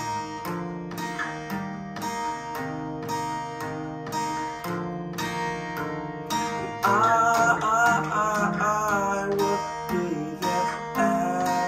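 Acoustic guitar strummed in a steady rhythm, tuned a half step down with its G string lowered to E. About seven seconds in, a man's singing voice joins for a couple of seconds on a held, wavering note.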